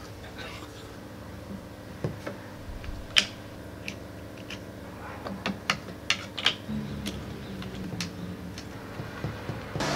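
Scattered clicks and knocks of hard plastic and aluminium 3D-printer frame parts being handled and fitted together by hand, with one sharper knock about three seconds in and a quick run of clicks a little past halfway.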